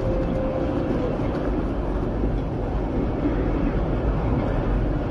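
Steady, dense roar of a large cargo plane in flight, heard from inside its hold.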